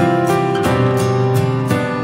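Instrumental background music led by acoustic guitar, with a steady rhythm.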